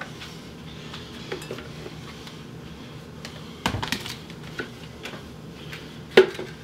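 Plastic parts of a food processor being handled: scattered clicks and knocks as the grating disc and work bowl are taken off and set down. There is a cluster of louder knocks a little after midway and one loud knock near the end.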